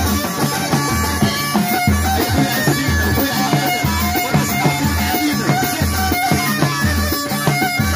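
Live Amazigh folk music: frame drums and a drum kit keep a steady beat under a held, reedy-sounding bowed violin melody, all amplified through a PA.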